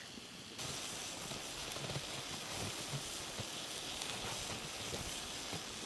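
Chunks of rabbit meat sizzling in a steaming frying pan with a little water over a wood-fired folding Firebox stove: a steady hiss with many small crackles, getting louder about half a second in.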